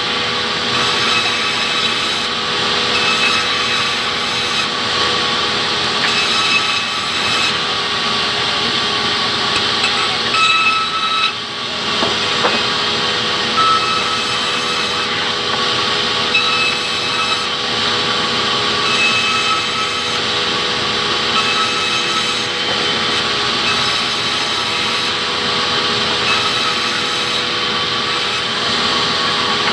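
Sawmill band saw running steadily and ripping hardwood boards fed through by hand, a constant machine hum with short higher whines every few seconds as the blade cuts.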